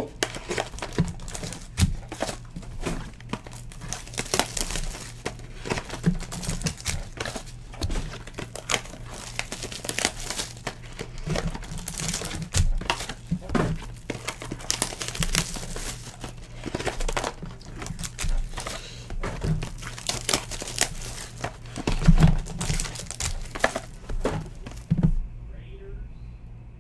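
Foil trading-card pack wrappers crinkling and rustling as packs are pulled from a cardboard box and handled, a dense run of irregular crackles and clicks that stops suddenly near the end. A steady low hum runs underneath.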